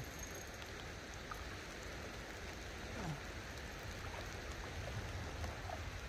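Light rain falling on a river surface, a steady even hiss.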